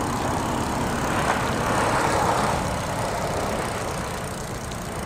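Road traffic noise from the street beside the path: a steady rumble of tyres and engines that swells about two seconds in as a vehicle passes, then eases off.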